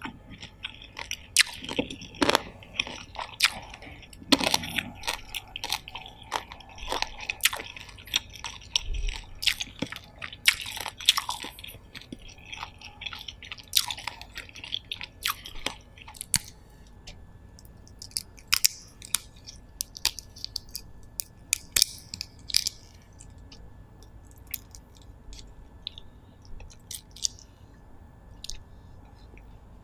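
Close-miked chewing and biting of steamed lobster meat: wet mouth sounds with sharp clicks and crunches, coming thick and fast at first and thinning out in the second half.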